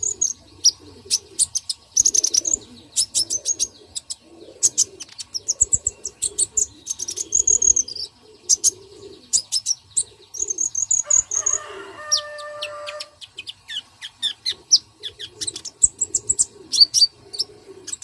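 Birds chirping busily, with rapid high-pitched chirps and trills and lower calls underneath.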